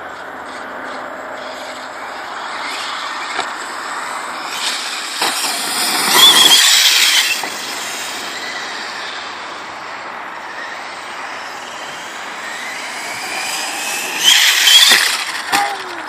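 Exceed MadBeast RC truck running on a dirt track: its motor whines, rising in pitch as it speeds up, loudest twice, about six seconds in and again near the end, over a steady hiss.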